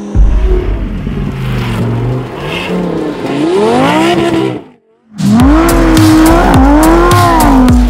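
Lamborghini Huracán Sterrato prototype's V10 engine revving hard as the car slides on gravel, its pitch rising and falling again and again with the throttle. The sound drops out almost completely for a moment about five seconds in, then returns loud.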